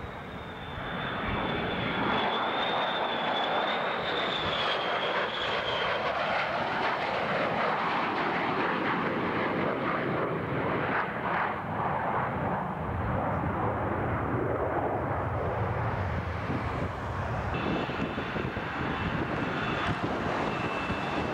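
Jet engine noise of a low-flying F-14 Tomcat passing the airfield, loud and steady from about a second in, with a high turbine whine over the first few seconds. Near the end, a high whine returns as a Blue Angels F/A-18 Hornet taxis.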